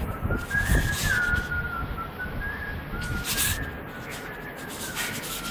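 A person whistling a wandering tune that steps up and down in pitch, with a few knocks and handling bumps under it.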